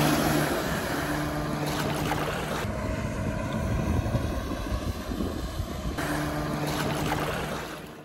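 Motorboat's V8 marine engine running, its steady hum coming and going under rushing water and wind buffeting the microphone; the sound fades out near the end.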